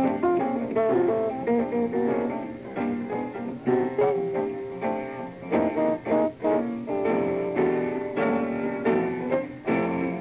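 Live jazz trio of archtop guitar, double bass and piano playing, the guitar to the fore with quick single-note runs over a walking bass. The sound is dull and muffled, as on an old 1950s live tape.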